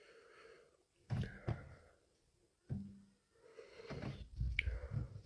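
A man breathing heavily and sniffing while eating Carolina Reaper chillies, with a few sudden knocks and thumps as he handles the peppers.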